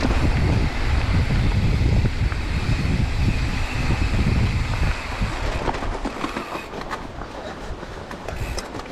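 Mountain bike rolling over rough trail: wind on the camera microphone gives a heavy low rumble with the bike rattling underneath, easing after about five seconds into lighter clicks and rattles.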